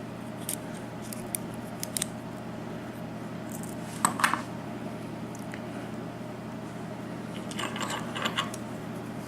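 Small metal clicks and clinks of lock parts and tools being handled as a Corbin KIK pin-tumbler cylinder is taken apart, the plug being pushed out with a follower. The clicks come singly and in short clusters, the busiest about four seconds in and again near the end.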